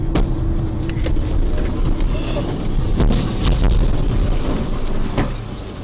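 Steady road and engine rumble from a car on a highway, then a loud bang about three seconds in as the bulk tanker truck alongside bursts, followed by more sharp knocks a couple of seconds later.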